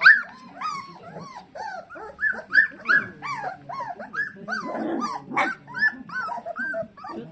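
Golden retriever puppies whining and yelping: a steady run of short, high cries, several a second, that rise and fall in pitch and overlap one another.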